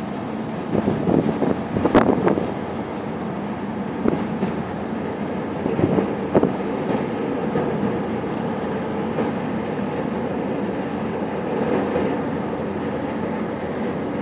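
Steady low rumble and hum of a ro-ro cargo ship's engines and propulsion as it manoeuvres close alongside a quay. A few sharp knocks come in the first half, the loudest about two seconds in.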